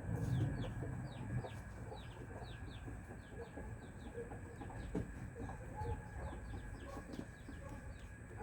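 Chickens clucking softly while pecking feed from a hand, with scattered sharp pecks and a steady run of quick, high chirps that fall in pitch, about three or four a second.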